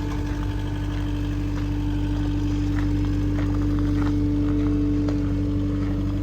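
Cat 259D compact track loader's diesel engine running steadily under an operator, with a constant hum that swells slightly partway through.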